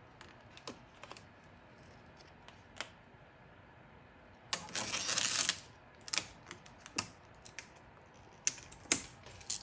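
Gloss black vinyl wrap film being handled by hand on a car's grille trim: scattered light clicks and ticks, with a crinkling rustle of the film lasting about a second midway.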